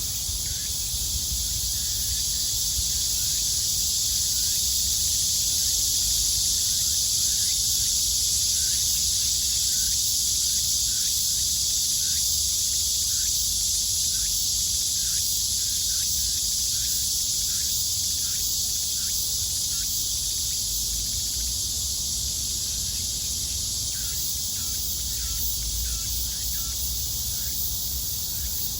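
Summer cicada chorus: a dense, steady high-pitched drone that swells a little in the first few seconds. Short faint chirps repeat about once a second beneath it, with a low rumble in the background.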